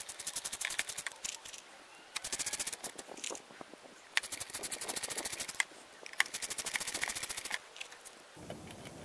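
Ratcheting screwdriver clicking rapidly in four runs of about a second each as screws are driven into a metal housing, with a few single ticks in the pauses between runs.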